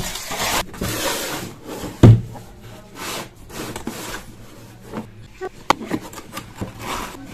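Packaging and parts being handled: rubbing and scraping, with one loud thump about two seconds in and a few sharp clicks later on.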